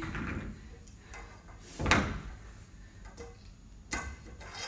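Weight plates being handled on a barbell: one sharp knock about two seconds in as a plate meets the bar or floor, and a lighter knock near the end.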